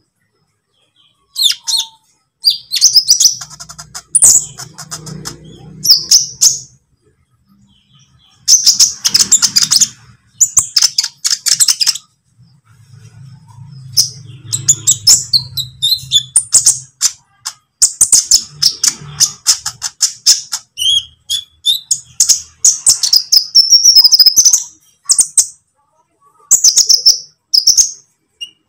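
Olive-backed sunbird (kolibri ninja) singing: rapid, high-pitched chirps and twittering trills in bursts of a few seconds separated by short pauses. A low hum comes and goes underneath twice.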